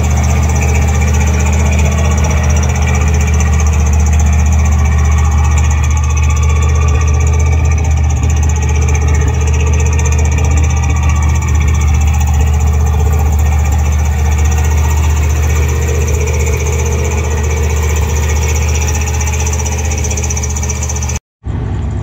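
1968 Jeep Gladiator's AMC 327 V8 idling steadily, with its ignition timing set too far advanced at 15° before top dead centre. The sound cuts off abruptly just before the end.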